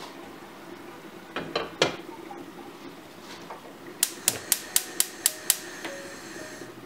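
A few sharp clicks or taps, then a quick even run of seven sharp clicks, about five a second.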